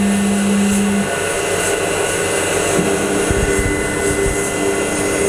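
CNC-converted Sieg X2 mini mill running its program. A steady whine from the axis drive cuts off about a second in, and a pulsing hum starts near three seconds in, with a few low thumps, as the end mill moves down beside the workpiece.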